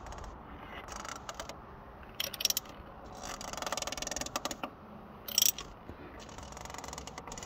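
Clicks and scrapes of a strap-type oil filter wrench and ratchet handle being worked onto a spin-on oil filter, with a run of rapid clicks about three to four and a half seconds in.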